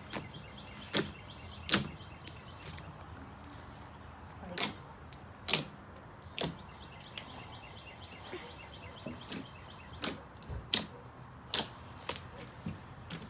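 A very large batch of homemade glue slime being kneaded and pressed against a plastic folding table, giving irregular sharp smacks and pops, about a dozen spread across the stretch.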